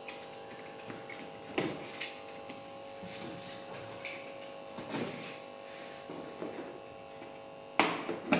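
A steady electric hum made of several held tones, with scattered knocks and rustles of handling. The handling gets louder and more frequent near the end.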